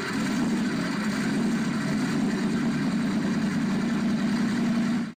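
A car engine idling steadily, then cutting off suddenly at the end.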